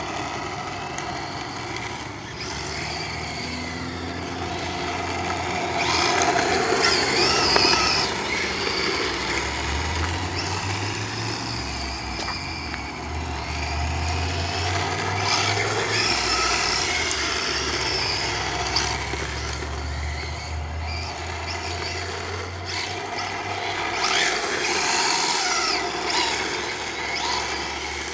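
Electric motor of a 1/10-scale RC drift car whining up and down with the throttle as it drifts figure eights on asphalt, with tyre scrub underneath. The whine is loudest about six to eight seconds in and again near the end.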